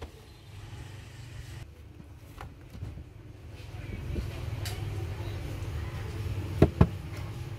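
Low steady rumble with light handling noise, then two sharp knocks close together near the end, like a smartphone being set down on a wooden table.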